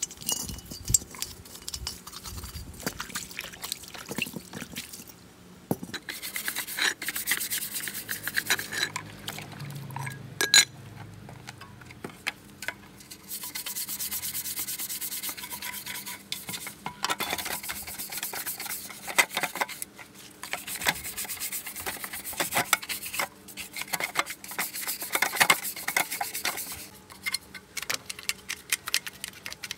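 Hand rubbing and scraping on an engine part, in bouts of scratchy strokes with short pauses between them, typical of sanding or scrubbing off rust and grime.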